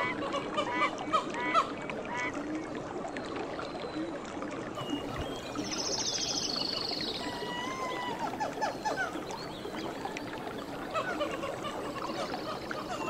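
Birds calling outdoors, with a rapid, descending trill about six seconds in, a short gliding call soon after, and another trill near the end, over a steady background hiss.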